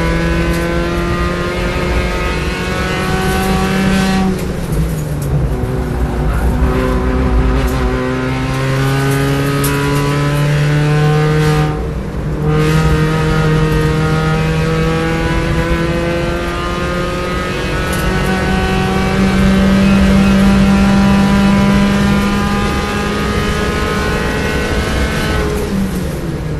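In-car sound of a B-Spec subcompact race car's four-cylinder engine under hard acceleration: the revs climb, drop at an upshift about four seconds in, dip briefly with a lift and gear change around twelve seconds, climb in a long pull, then fall near the end as the car slows for a corner.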